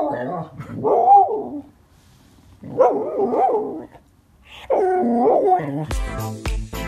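Samoyed 'talking': drawn-out howling woo-woo calls with pitch sliding up and down, in about four short bouts with brief pauses between. Near the end, electronic music with a steady beat comes in.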